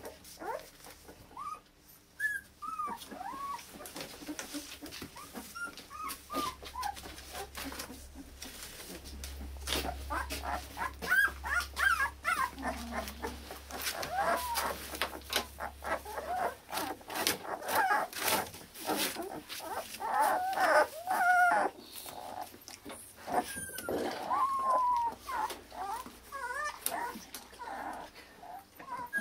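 Akita puppies whimpering and yipping in many short, high calls that rise and fall in pitch as they play-wrestle, among scratching and knocking sounds.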